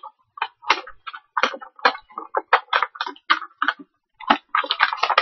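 Miniature-figure packaging being handled and opened by hand: a run of sharp clicks and crackles, about two or three a second, turning into a denser crinkling near the end.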